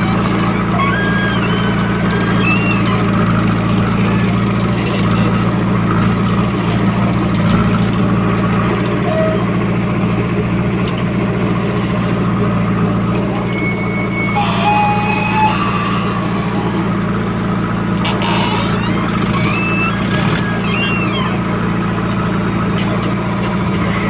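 JCB 3DX backhoe loader's diesel engine running steadily under load while it digs soil and swings to dump it into a tractor trolley, heard close from the operator's seat. A few short high chirps and a brief high steady tone come over it about halfway through.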